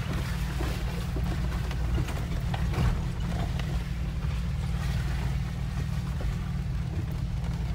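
Jeep Wrangler JK engine running at low trail speed, heard from inside the cabin as a steady low rumble, with scattered small knocks and rattles from the rough dirt trail.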